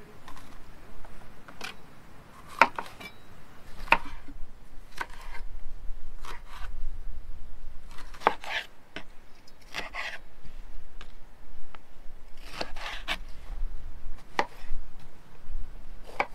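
Kitchen knife slicing a red bell pepper on a wooden cutting board: irregular chops onto the board, about one every second or so, some in quick pairs.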